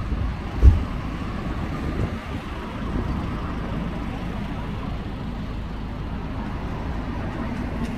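Steady low engine and road rumble of an old London black taxi heard from inside the cab, with a single thump less than a second in.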